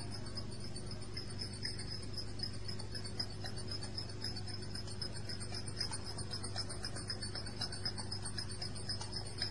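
Insects chirping steadily in a high, fast-pulsing trill, over a low steady hum.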